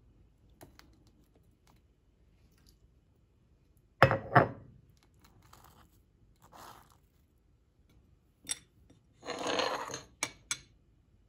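Tableware handled on a stone countertop: two sharp knocks about four seconds in, a knife scraping over toasted bread, then a glass dish slid and set down with a few clicks near the end.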